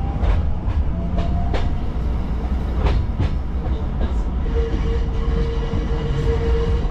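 Hakone Tozan Railway train running, heard from inside the carriage as another train passes close alongside: a steady low rumble with a few sharp clicks from the wheels. A steady whine begins about four and a half seconds in.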